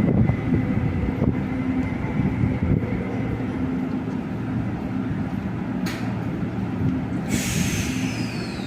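Electric commuter train rumbling at the platform, with a faint steady whine; about seven seconds in, a sharp hiss of released compressed air starts.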